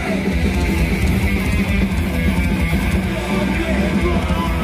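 Loud heavy metal music with distorted electric guitar playing continuously.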